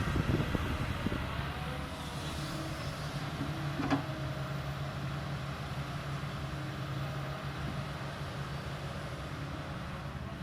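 Kobelco excavator's diesel engine running steadily under work, with a sharp clank about four seconds in.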